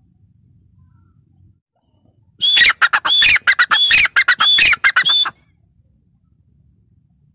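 Grey francolin calling: a rapid, loud run of harsh, repeated notes lasting about three seconds, starting a little over two seconds in.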